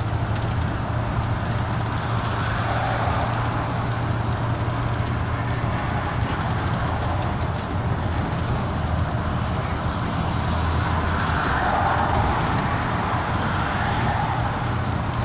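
Steady cabin noise inside a double-decker bus cruising at motorway speed: a low engine drone under an even road and tyre roar, swelling slightly a few seconds in and again near the end.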